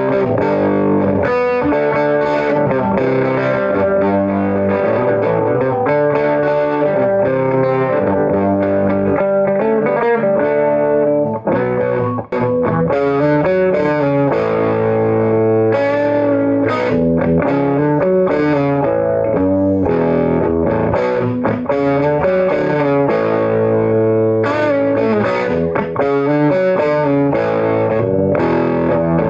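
Electric guitar on its bridge pickup played loud through a hand-built single-ended 6L6 tube amp with a 6SL7 preamp, turned wide open: a continuous stretch of strummed chords and riffs, broken by two short gaps about eleven and twelve seconds in.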